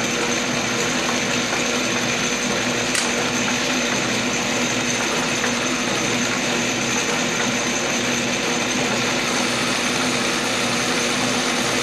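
Metal lathe running steadily, turning down an aluminium bar as the tool is fed along it by hand.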